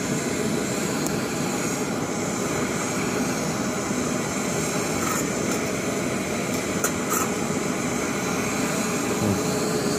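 Two isobutane-propane backpacking stoves, an MSR Pocket Rocket and an MSR Reactor, burning on high with a steady rushing hiss, the Pocket Rocket the noisier of the two. A few light metallic clinks come near the middle as the pot lids are handled.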